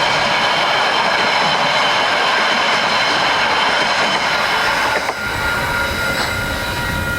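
A train rolling past, its wheels clattering over the rails with a steady high-pitched wheel squeal. About five seconds in, the sound shifts: the rumble gets deeper and one squeal tone rings out more clearly.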